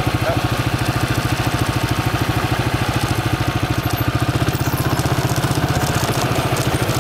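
ATV engine running at a steady idle close to the microphone, a fast, even putter.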